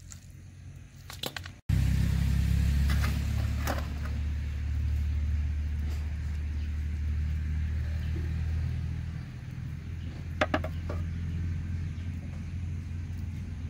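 Low, steady motor rumble that comes in suddenly about two seconds in and eases off about nine seconds in, with a few short clicks over it.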